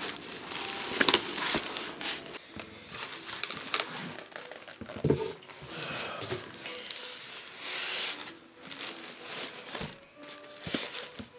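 Plastic wrapping crinkling and polystyrene foam packing rubbing and creaking as a boxed record player is handled and lifted out. A foam end cap is pulled off. The result is irregular rustles and clicks.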